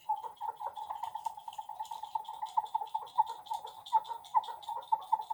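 A homemade whistle made from a plastic vitamin jar on a string, with a hole cut in its side, whirled through the air so that it gives a steady whistling tone. The tone warbles in quick, regular pulses, a little like a small forest bird.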